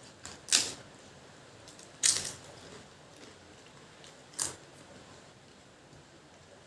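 Three loud, crisp crunches of eating, about half a second, two seconds and four and a half seconds in, like bites into fried papad, with quiet chewing between.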